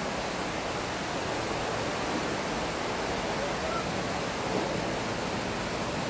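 Steady rushing of running water, an even hiss with no breaks or distinct events.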